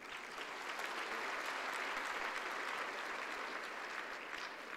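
Audience applauding, building up over the first second and fading away near the end.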